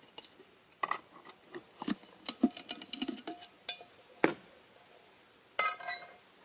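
Cookware clattering: a metal cook pot and bowl are knocked and clinked about on a wooden table. Near the end comes a louder ringing metal clank as the pot is set onto the pot supports of a canister backpacking stove.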